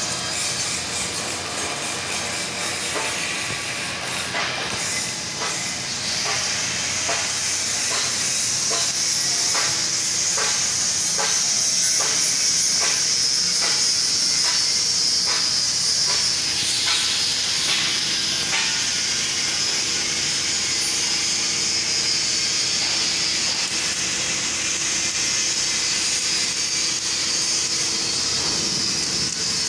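Electric arc welding on a steel beam: a steady hiss with crackling, the crackle busiest in the first half.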